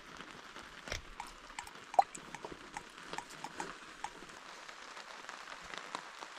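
Irregular light knocks and clicks over a steady hiss, with one sharper knock about two seconds in.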